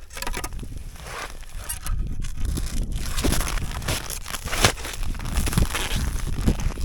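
Boots crunching in snow in irregular steps, over a steady low rumble of wind on the microphone.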